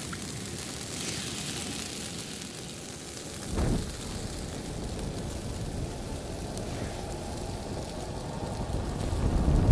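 Film sound effect of a spray of blood raining down through a room, a steady rain-like hiss, with a low thud about three and a half seconds in and a low rumble swelling near the end.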